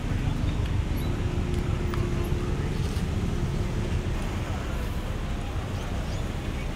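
A car engine running with a steady low rumble; a faint hum in it fades out about halfway through.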